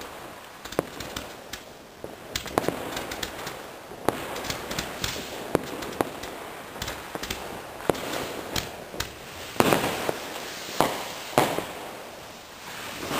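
Fireworks: rockets going up amid many scattered bangs and firecracker pops, with a run of louder bangs near ten seconds in.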